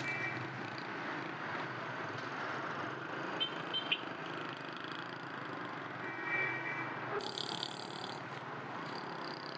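Busy road traffic heard from a moving motorcycle: a steady hum of engines and tyres, with a few brief, faint horn beeps.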